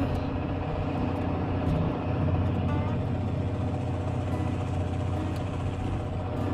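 Fishing boat's engine running with a steady low drone, over the wash of the sea against the hull.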